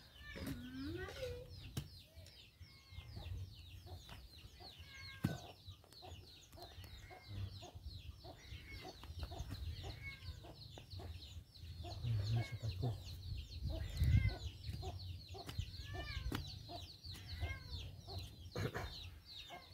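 Chickens clucking, with rapid high chirping that runs on without a break. A few sharp thuds stand out where a steel digging bar strikes the soil.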